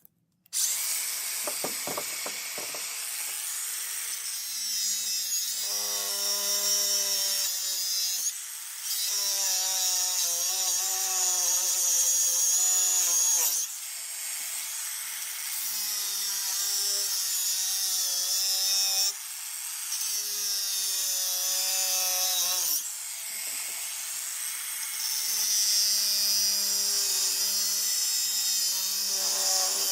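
A power tool cutting through the steel PTO drive shaft of a tractor-mounted chipper: a steady whine with a hissing edge, pitch wavering under load. It stops briefly four times.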